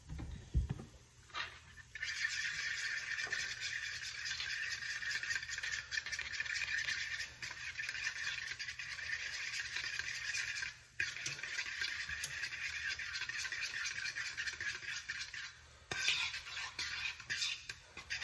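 Fork whisking raw eggs in a bowl: a fast, steady clicking and scraping of the tines against the bowl, with a short pause about eleven seconds in and another near the end.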